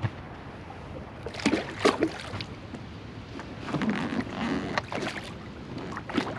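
Wind on the microphone and water moving around a bass boat, broken by a few sudden noises, the loudest about two seconds in.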